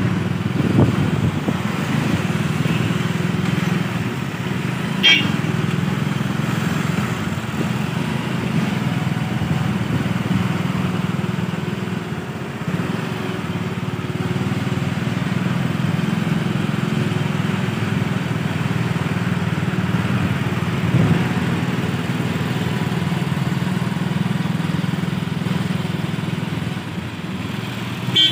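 Steady low drone of vehicle engines and tyre noise on the road, with a short high-pitched beep about five seconds in.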